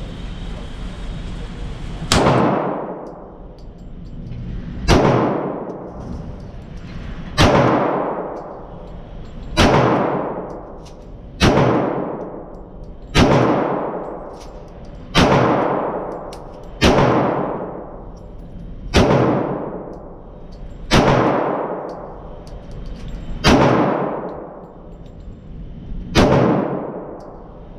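Pistol shots in slow, deliberate fire, about a dozen rounds roughly two seconds apart. Each shot is a sharp crack followed by a long echoing tail in the enclosed indoor range.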